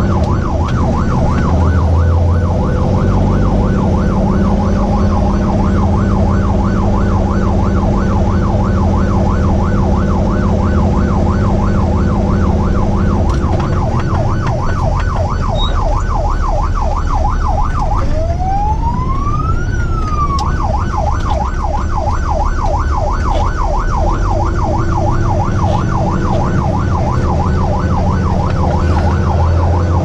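Electronic siren yelping rapidly and evenly, with one slow sweep up and back down about two thirds of the way in, heard from inside a Peterbilt 389 heavy wrecker's cab with its diesel engine running underneath.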